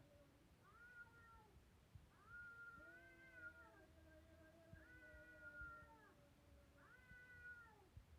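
Cats yowling, faint: four long, wavering calls about two seconds apart, with a lower, drawn-out moan from a second cat under them in the middle.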